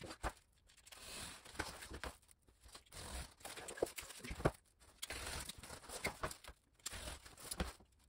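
Cardboard sheets being slid about and cut with a utility knife: a run of short scraping and ripping strokes with a few sharp taps.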